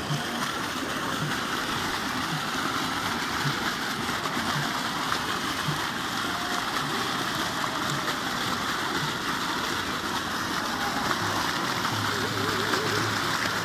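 A heavy stream of water gushing from a 5-inch delivery pipe of a solar-powered pump and splashing into a water-filled ditch: a steady rushing and splashing at full flow.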